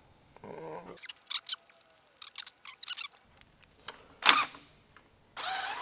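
A cordless drill/driver whirs briefly while bolts are being taken out, followed by a run of light metallic clicks and clinks from the bolts and spanner. A sharp clank comes about four seconds in, and the drill whirs again near the end with a rising tone.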